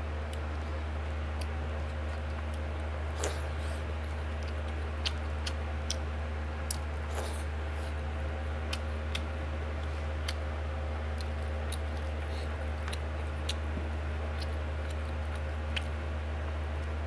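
Close-up eating sounds from a person eating rice and pork by hand: scattered soft, wet clicks and smacks at irregular intervals, over a steady low hum.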